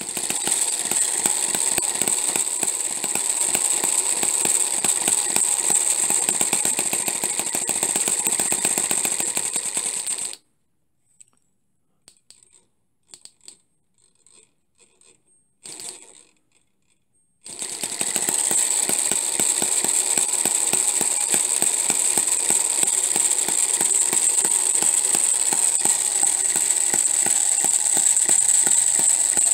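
Home-made miniature four-stroke hit-and-miss engine running with a fast, rapid clatter of firing and valve gear under a steady high whine. About ten seconds in it stops, a few light taps follow, and some seven seconds later it starts and runs again with the same rapid clatter.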